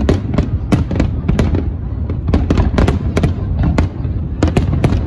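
Fireworks display: rapid, irregular bangs and crackles of aerial shells, several a second, over a continuous low rumble.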